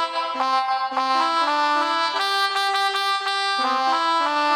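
Melodica (pianika) app on a mobile phone playing a telolet bus-horn tune: a run of held reedy notes stepping up and down in pitch.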